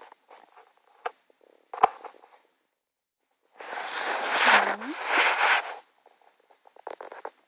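Close handling noise: a few sharp clicks, then about two seconds of loud rustling right against the microphone, then a quick run of faint ticks near the end.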